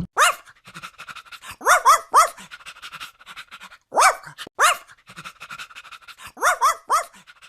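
Small dog yapping: about nine short, high-pitched barks that rise and fall in pitch, several coming in quick runs of two or three.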